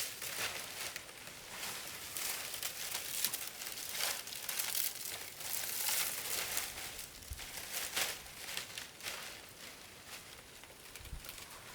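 Irregular rustling and crackling of something dry being handled, with no steady rhythm.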